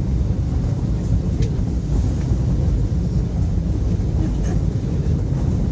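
Strong mountain wind buffeting the microphone: a steady, loud low rumble.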